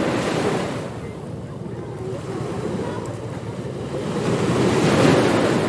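Ocean waves breaking on a beach. One wave washes in at the start and fades, then a bigger one swells and breaks about five seconds in.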